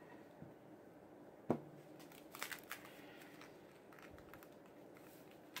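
Faint handling of a printed paper treat wrapper being pressed and folded by hand, with small paper crinkles and ticks. A single sharp knock about a second and a half in comes from the plastic hot glue gun being set down on the table.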